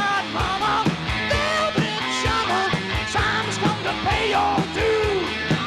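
Live rock band playing: electric guitar with bending notes over a steady drum beat, in a passage between sung lines.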